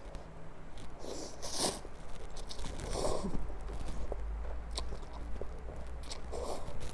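A person eating instant noodles in soup right at the microphone: chewing, with a few short noisy bursts of slurping spaced a second or two apart.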